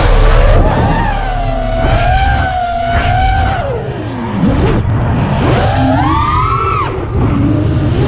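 Five-inch FPV quadcopter's brushless motors (TBS Mr Steele Silk 2306, 2345 kV) whining through the props. The pitch holds steady, then drops sharply about four seconds in as the throttle is cut, and climbs again twice as it is punched back up. Heavy wind rumble on the onboard camera's microphone.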